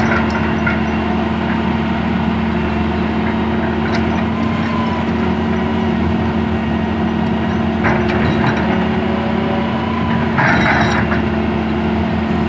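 Hitachi hydraulic excavator's diesel engine running steadily at close range while the bucket works logs into place, with a few short, harsh bursts of noise near the start and about eight and eleven seconds in.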